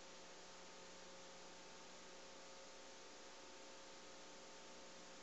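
Near silence: the recording's steady background hiss with a faint electrical hum, nothing else happening.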